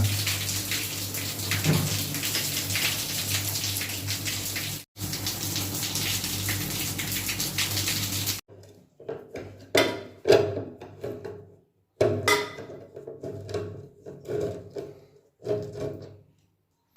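Water running steadily from a tap for about eight seconds, briefly cut off near five seconds. It then gives way to short separate bursts of percussive music with silences between.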